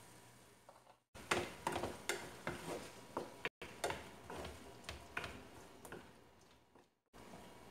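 Spatula knocking and scraping against a frying pan while a chicken and mushroom mixture is stirred: an irregular run of sharp clicks, a few a second, cut twice by brief dropouts.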